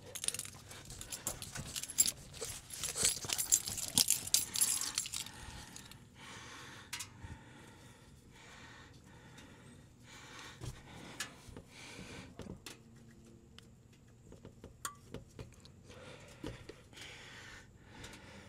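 Rustling and scuffing with sharp little clicks as a person gets down onto the concrete and slides under a car, busiest for the first five seconds, then quieter scattered clicks and rustles as they work underneath.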